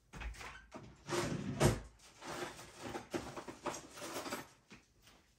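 A drawer being opened and rummaged through to fetch a pair of pliers: a run of rustles and knocks, loudest between about one and two seconds in, dying away near the end.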